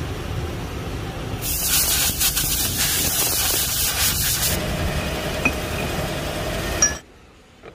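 Mitsubishi manual lathe running, with a loud hiss from about a second and a half in that lasts about three seconds. The sound cuts off abruptly near the end.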